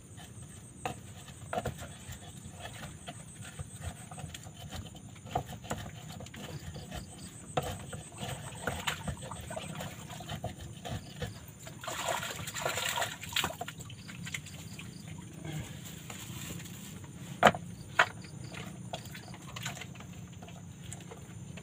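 Scattered knocks and clicks of hands and a knife working a small chicken on a cutting board, with a rustling stretch about twelve seconds in and one sharp knock a few seconds later. Crickets chirp faintly and steadily behind.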